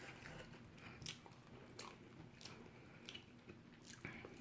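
Faint close-up chewing of a mouthful of pancit palabok noodles, with a few soft wet mouth clicks.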